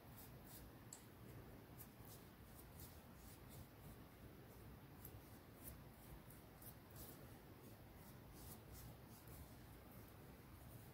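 Near silence with faint, irregular scratchy strokes of a small paintbrush working acrylic paint onto a clay pumpkin.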